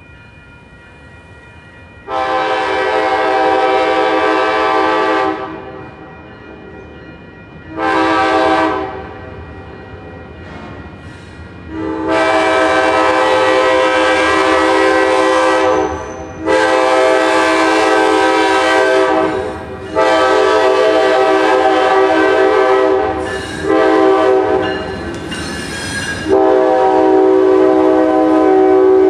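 Amtrak GE P42DC diesel locomotive sounding its multi-tone air horn in a string of about eight blasts, mostly long with a few short ones, as a warning for a grade crossing. The train draws close and runs past near the end.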